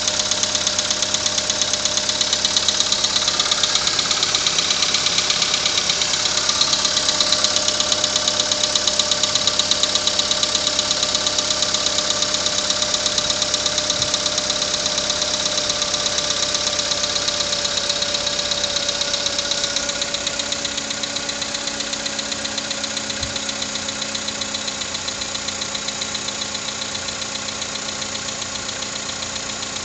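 VW Group 1.6 CFNA four-cylinder petrol engine idling cold, with a fast, even knock in its running: the cold-start knock it is being recorded for. About twenty seconds in it gets a little quieter and its hum drops slightly in pitch as the idle settles.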